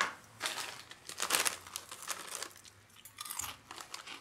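Irregular crinkling and crunching in a series of short bursts, loudest about a second in, as something crinkly is handled.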